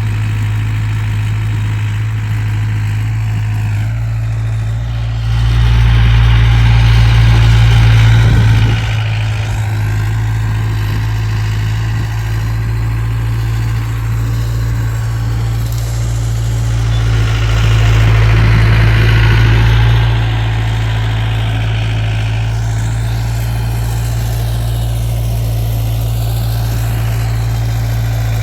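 Takeuchi TL26 compact track loader's diesel engine running steadily. It works harder and grows louder twice, about five seconds in and again around seventeen seconds, for about three seconds each time.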